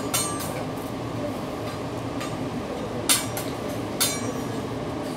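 A teppanyaki chef's metal spatula clinking against the steel griddle: a few sharp metallic strikes with a short high ring, the loudest about three seconds in, over a steady restaurant hum.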